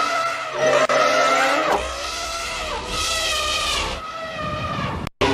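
Stock elephant trumpeting sound effect: several long, squealing trumpet calls one after another, bending in pitch. The last call cuts off sharply near the end.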